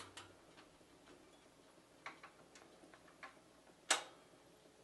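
Zenith record changer's mechanism cycling after a record drop: soft irregular clicks and ticks as the tonearm swings over, then one sharper click near the end as it sets the needle down on the record.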